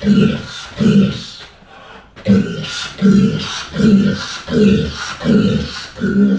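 A man's voice repeating a short rhythmic syllable, "gosu", about twice a second, slowed to half speed, with a brief break about a second and a half in.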